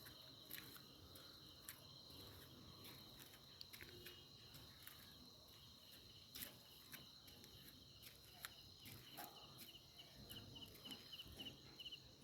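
Faint insects chirping: a steady high trill with a quicker pulsed chirp beneath it, with a few scattered soft clicks.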